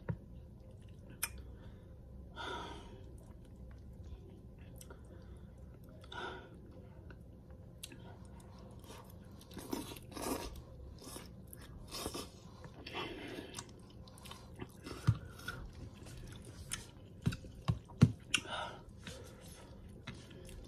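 Quiet chewing of spicy instant noodles close to the microphone, with scattered small mouth clicks and a few soft smacks.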